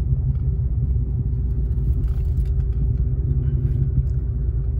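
Pickup truck's engine and road noise heard inside the cab while driving: a steady low drone with a faint hum above it.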